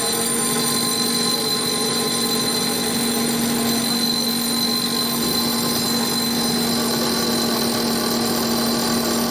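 Portable RAMFAN ventilation blower running steadily, a constant rush of air with a steady hum.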